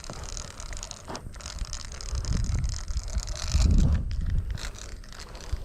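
Outdoor wind buffeting the microphone in low rumbling gusts, loudest a little past halfway, over a light scattering of small mechanical clicks.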